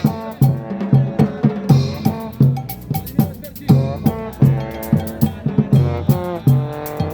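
Brass band music: trombones play a melody in held notes over a steady drum beat of bass drum and snare.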